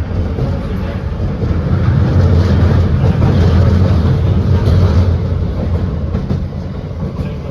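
London Underground 1996 Tube Stock train running between stations, a heavy low rumble of wheels on track that swells about two seconds in and eases toward the end.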